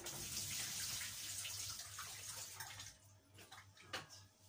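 Water pouring and splashing as a pot of potatoes is drained, running for about two and a half seconds and then stopping, followed by a couple of light knocks.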